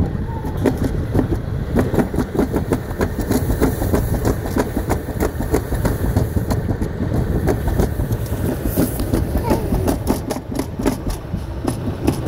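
Summer toboggan sled running fast down a stainless-steel trough track: a continuous rumble with dense, rapid rattling as the sled rides the metal channel.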